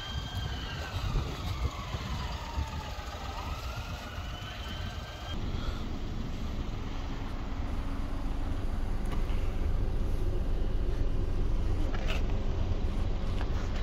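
Low outdoor rumble of traffic, with a siren wailing slowly down and up in pitch during the first five seconds. About five seconds in the rumble gets louder and stays heavy.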